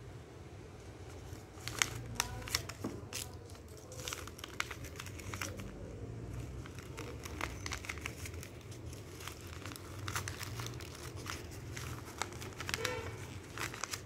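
A sheet of lined notebook paper being folded over and over and pressed flat on a wooden table: irregular crinkling and sharp paper crackles.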